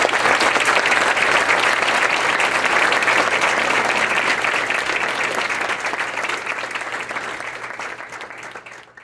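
Audience applauding, a dense steady clapping that tapers off over the last few seconds and dies away near the end.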